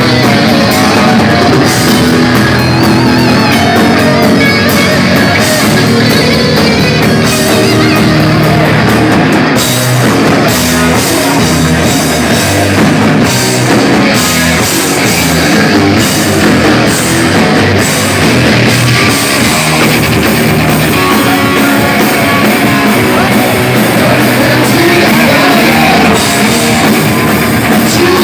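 Heavy metal band playing live, loud and dense: distorted electric guitars over bass and a drum kit.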